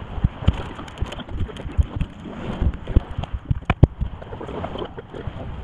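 Irregular knocks and clatter of a plastic catch basin and its grate being handled and fitted, with wind buffeting the microphone.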